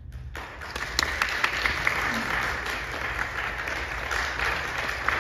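Audience applauding, the clapping starting suddenly a moment in and carrying on steadily.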